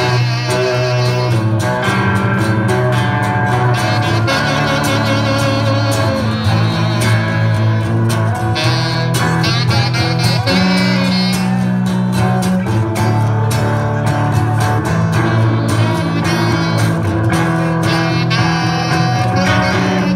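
Live amplified street band playing: acoustic guitar, electric guitar and saxophone together in a steady, bluesy groove.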